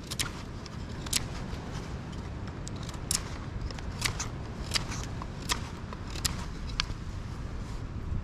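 Knife blade shaving a stick, carving a point on a wooden tent peg: short, sharp scraping strokes at irregular intervals, roughly one a second, over a steady low rumble.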